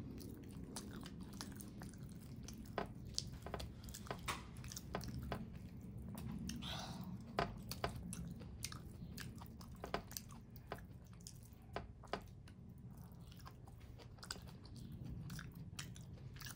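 A person chewing and eating with the fingers, close to the microphone: steady wet chewing broken by many short, sharp mouth clicks and smacks.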